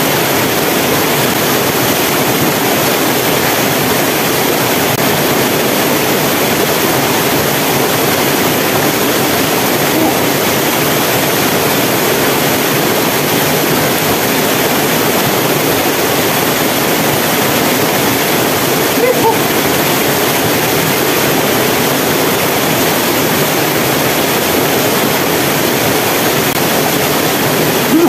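Waterfall pouring into a rock pool: a loud, steady rush of falling water.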